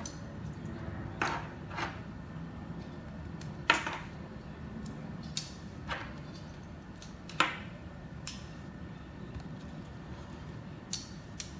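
Small magnetic pieces of a polar pen snapping together with sharp clicks, about nine at irregular intervals, over a faint steady hum.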